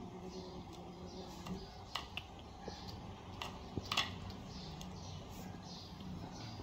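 Kittens eating fish scraps off a plate: soft chewing and licking with small sharp clicks, the loudest about two and four seconds in.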